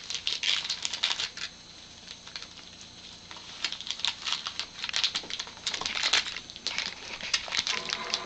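Christmas wrapping paper crinkling and tearing as a dog chews and pulls at it, in bursts of quick crackles with a quieter lull about two seconds in.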